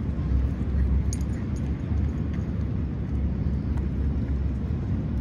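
Steady low rumble of outdoor background noise, with a few faint ticks about a second in.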